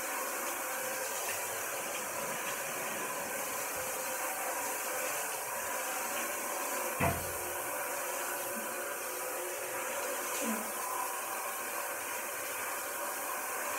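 Shower water running in a steady hiss, with one sharp knock about seven seconds in.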